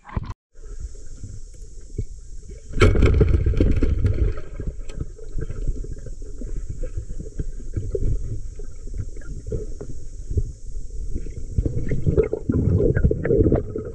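Muffled underwater noise picked up by a diver's camera: a low rumble of moving water with crackles and clicks from bubbles and handling, growing louder about three seconds in.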